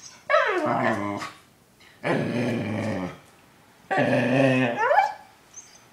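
A frightened dog crying in three drawn-out, whining cries, each about a second long, the first falling in pitch and the last ending on a rising glide.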